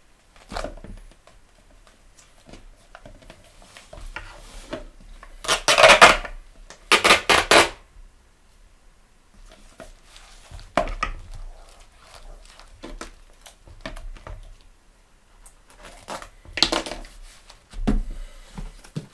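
Tape being pulled off a roll in loud pulls about six and seven seconds in, with quieter knocks and rustles of the book and tools being handled.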